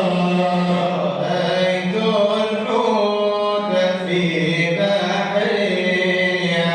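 Male voices chanting an Arabic Sufi madih, a devotional praise poem for the Prophet, in long, slowly winding melodic lines over a steady held low note, with no instruments.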